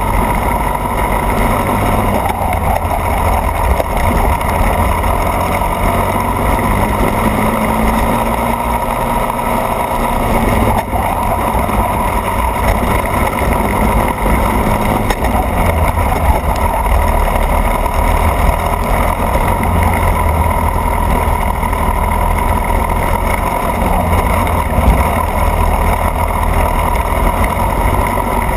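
Racing go-kart engine running at speed on track, a loud continuous drone with only small changes in pitch.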